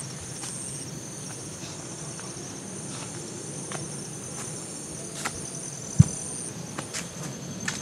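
A steady, high-pitched chorus of insects trilling in the forest, with scattered light footstep clicks on the trail and a single low thump about six seconds in.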